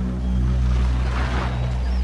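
A car driving by on a dirt road; the rush of tyres and engine swells to a peak about halfway through. A low sustained music drone plays underneath.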